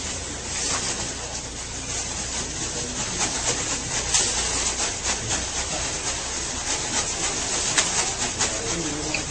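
Plastic wrap crackling and rustling as it is pulled off the roll and stretched across a doorway, a steady hiss broken by many small crinkly snaps.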